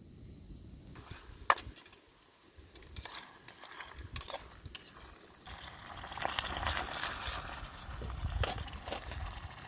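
Food frying in a pan over a camp stove or fire, with scattered clicks and scrapes of a utensil stirring it. The sizzling grows louder about five and a half seconds in.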